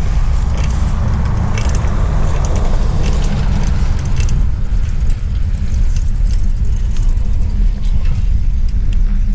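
Steady low rumble of wind buffeting the microphone and road noise while riding a bicycle, with scattered light rattling clicks.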